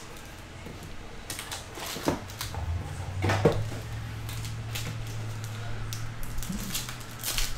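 Foil trading-card pack crinkling and ticking as it is pulled out of its cardboard box and handled, with a few sharper clicks. A faint low hum runs underneath from about halfway.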